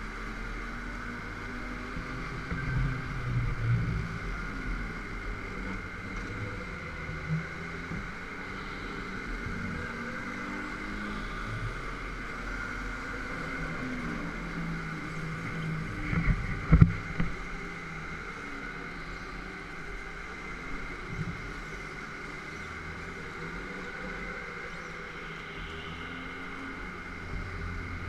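Go-kart running round the track, heard from on board as a steady drone with a shifting low rumble. A couple of sharp knocks come about two-thirds of the way through, the loudest sounds.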